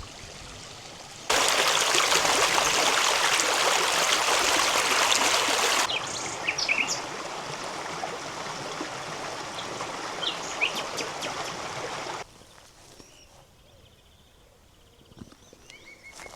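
Flowing river water in abrupt cuts: a loud rush for about four seconds, then a quieter flow with short bird chirps, then a much quieter stretch near the end.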